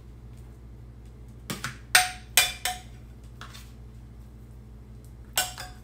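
Metal spoon knocking and clinking against a ceramic bowl while scooping out cold pulled pork: about six sharp clinks, several with a short ring, in a cluster around two to three seconds in and again near the end.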